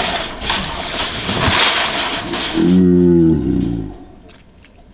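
Shopping cart crashing through the shallow water of a concrete channel: a dense rush of splashing and rattling. About three seconds in, a loud, long, low shout, held for about a second.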